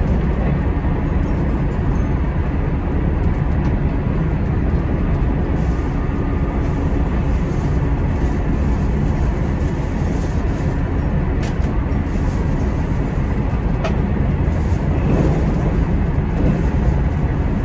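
Chizu Express HOT7000-series diesel railcar running at speed, heard from inside the front car: a steady low engine drone mixed with the rumble of wheels on rail.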